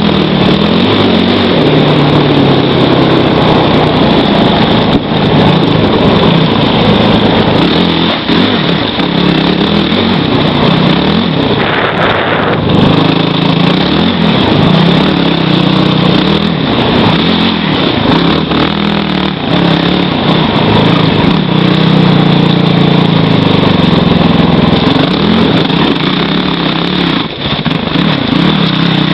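Kawasaki KFX450R quad's freshly rebuilt single-cylinder four-stroke engine running while riding, its revs rising and falling with the throttle.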